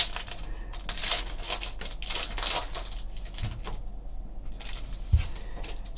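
Trading-card pack wrapper crinkling as it is torn open, then the cards rustling as they are slid out and handled. A short thump about five seconds in.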